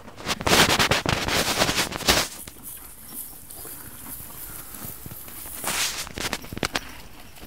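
Dry hay crackling and rustling close to the microphone as a Polish draft horse noses through it and pulls mouthfuls while feeding. The crackling comes in two bouts, a longer one in the first two seconds and a shorter one near the end.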